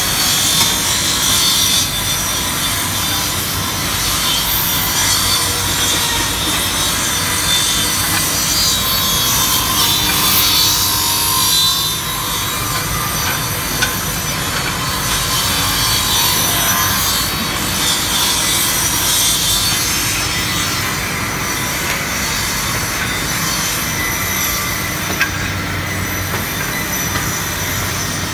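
Fuvico RH-86A automatic double-end cutting and milling machine running steadily under load, its chain conveyor carrying wooden strips through the saw and milling heads with a continuous high-pitched cutting noise. A couple of sharp clicks sound partway through.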